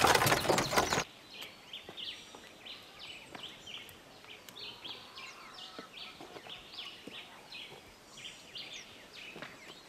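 Loud rolling noise of an ox cart that cuts off abruptly about a second in. It gives way to quiet outdoor ambience with birds chirping: many short, high calls repeating.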